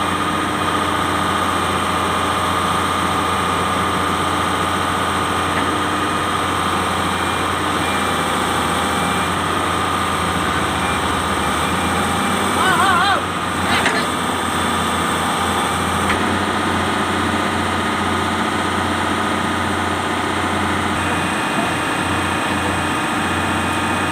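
Excavator diesel engine idling steadily. About halfway through there is a brief warbling sound and a click.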